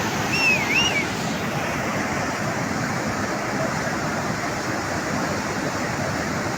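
Flash-flood water rushing, a loud steady roar of fast, swollen water. About half a second in comes a brief wavering whistle that rises and falls twice.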